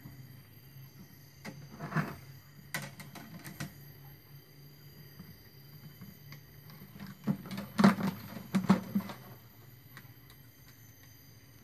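Iron wire and a plastic bucket lid being handled: scattered clicks and light taps as the wire is threaded through the lid, with the loudest cluster of taps about eight seconds in.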